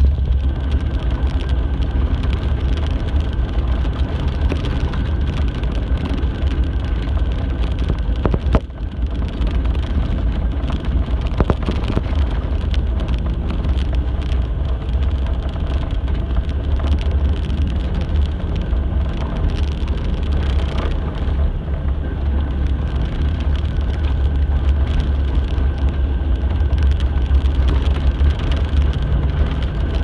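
A bus's engine and road noise heard from inside the cabin: a steady, loud low rumble with a brief click about eight seconds in.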